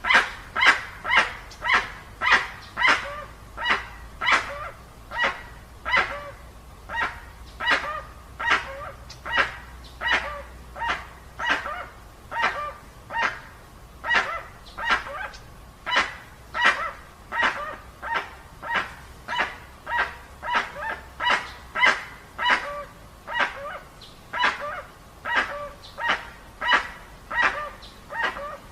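Dusky-legged guan (jacuguaçu) calling: a long, unbroken series of short calls repeated at roughly two a second.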